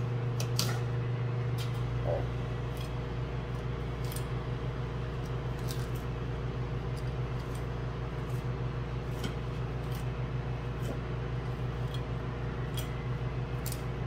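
Knife cutting the rib bones away from a namorado fish fillet on a cutting board, with scattered light clicks and scrapes. Under it runs a steady low electrical hum, the loudest thing heard.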